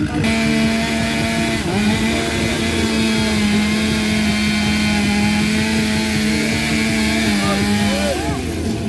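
Two-stroke chainsaw running at full throttle while cutting wood, holding a steady high pitch; it dips briefly about two seconds in, and the throttle comes off near the end, letting the pitch fall.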